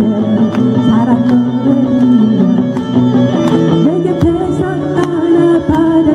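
A live band plays a pop-rock song through a PA, with electric guitars, bass and a drum kit whose cymbal hits tick steadily. A woman sings the vocal line over it.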